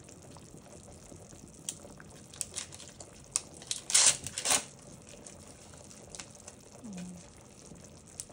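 Crinkling and tearing of a plastic curry roux packet being opened, in a few crackly bursts that are loudest about four seconds in, over the faint bubbling of a simmering pot.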